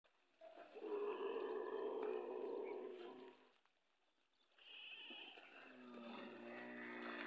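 Dromedary camels groaning: a long rough call of about three seconds, then after a short gap a steadier, pitched moan begins and carries on to the end.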